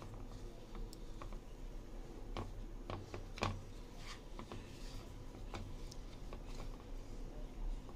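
Hand kneading sticky pumpkin and glutinous rice flour dough in a bowl: soft squishing with irregular light clicks and taps of the hand and dough against the bowl, the sharpest about three and a half seconds in. A steady low hum runs underneath.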